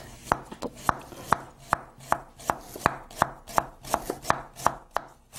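Kitchen knife slicing fresh ginger into thin rounds on a cutting board, in steady, even strokes about two to three a second.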